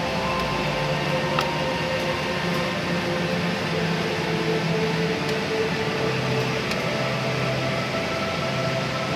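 Drolet HeatPro wood furnace running during a burn: a steady rushing noise with a low hum, and a few faint ticks.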